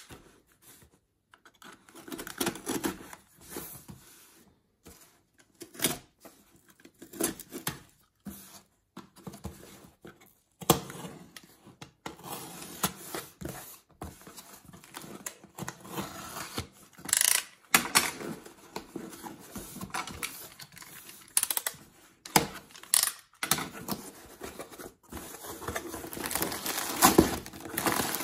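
Utility knife slicing packing tape on a cardboard box, with scraping, tearing and knocks of cardboard as the flaps are pulled open, in short irregular strokes with brief pauses. Near the end, a plastic mailer bag inside crinkles as it is handled.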